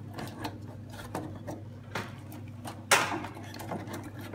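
Hard plastic parts clicking and knocking as the control-panel unit of an Anajet Sprint garment printer is handled and pressed back into its housing, with one louder knock about three seconds in. A steady low hum runs underneath.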